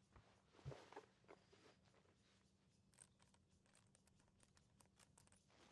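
Near silence: quiet room tone with a few faint clicks and rustles of handling.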